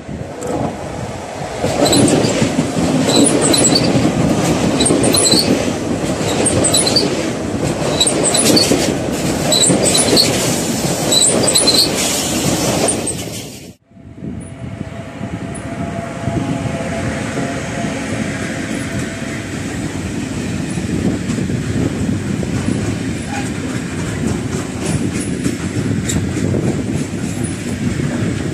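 ICE high-speed train passing at speed, a loud rush of wheels on rails with short high-pitched squeaks. About halfway through it cuts off abruptly, and an electric locomotive hauling a long freight train of hopper wagons rolls past with a steady rumble and clatter of wheels.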